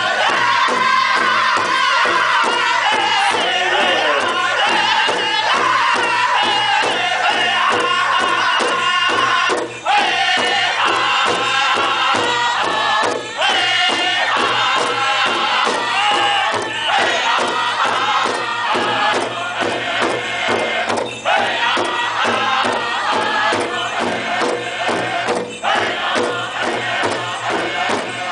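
Powwow drum group singing a song in unison around one large drum, several men striking it together with drumsticks in a steady beat.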